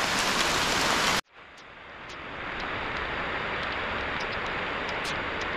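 Steady rain falling on forest foliage. About a second in it cuts off abruptly, then fades back in as a softer rain hiss with scattered single drips.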